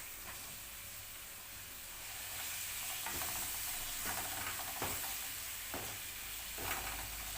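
Onions and spices frying in a pan, with tomatoes going in. A steady sizzle grows louder about two seconds in, and a few light knocks and scrapes come from the stirring spoon.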